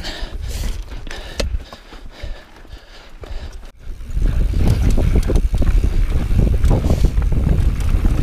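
Transition Sentinel mountain bike rolling over rocky trail: tyres crunching on rock and the bike rattling, with scattered clicks. About four seconds in, a loud low rumble sets in and stays, full of rapid knocks.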